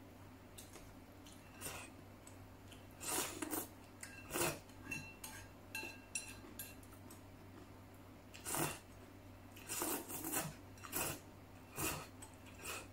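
Eating flat rice noodle soup with chopsticks: short slurps of noodles and chopsticks clinking against a porcelain bowl, coming in separate brief bursts every second or so.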